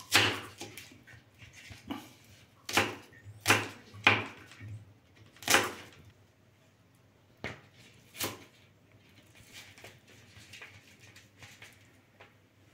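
A kitchen knife slicing through a raw red onion held in the hand: about seven short, crisp cuts in the first eight seconds or so, the last two fainter.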